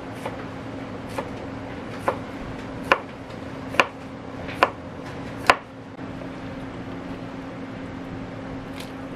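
Knife chopping food on a cutting board: seven slow, evenly spaced strokes about one a second, which stop about halfway through, over a steady low hum.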